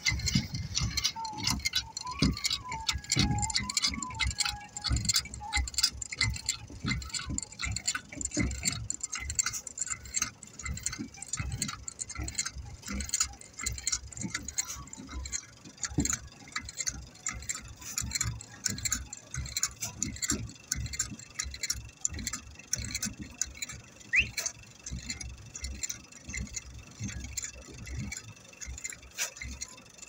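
Bitumen sprayed from a hand-held hose lance onto crushed stone, a dense, irregular crackling and pattering that keeps up throughout.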